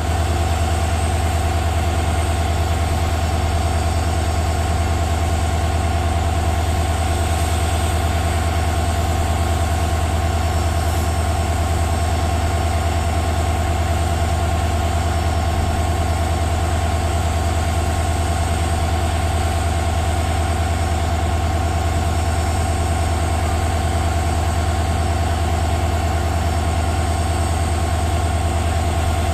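WDG-4D diesel-electric locomotive's EMD 710 V16 two-stroke turbocharged engine idling: a steady deep hum with a steady higher whine over it, unchanging throughout.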